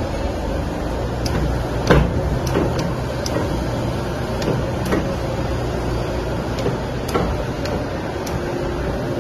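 Uncoiling machine running, its motor drive giving a steady hum, with scattered short clicks and clunks, the loudest about two seconds in.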